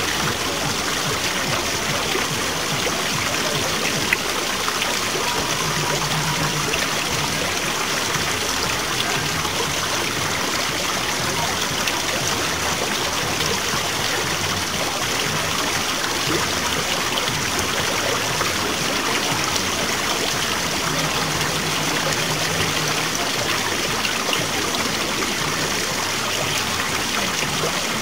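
Water running steadily over rocks in a small cascade into a garden pond, a constant trickling rush. One sharp click stands out about four seconds in.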